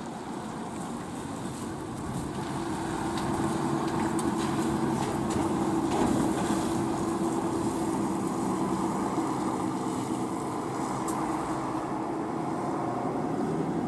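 A diesel non-step city bus pulling away from a stop and driving past. Its engine note is steady, grows louder as the bus passes at about four to seven seconds in, then eases as it moves off.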